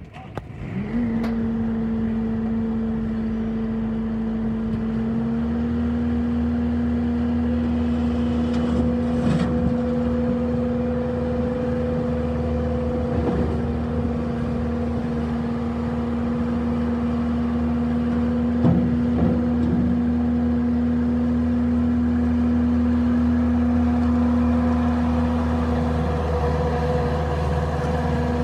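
Bobcat S650 skid steer's diesel engine starting up about a second in, its pitch rising and settling, then running steadily.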